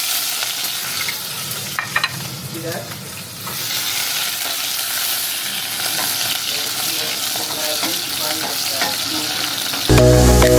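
Food sizzling and frying in a hot pan, a steady hiss with a few sharp clicks about two seconds in.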